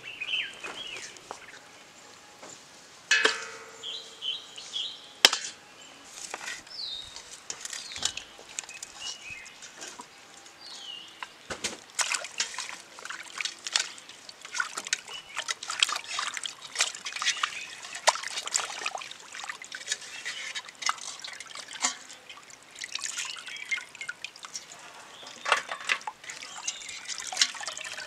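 Raw quail being washed by hand in a steel pot of water: irregular splashing and sloshing as the birds are rubbed, and water trickling and dripping back into the pot as they are lifted out.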